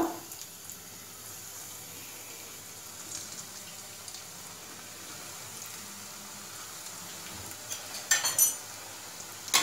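Semolina-coated potato and cheese balls deep-frying in hot oil in a steel kadhai, a steady sizzle. About eight seconds in comes a short clatter of clinks.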